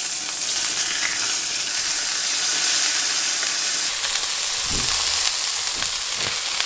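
Tenderloin steak sizzling steadily as it sears in an enameled cast-iron skillet with garlic cloves, with a few soft thumps about two-thirds of the way through.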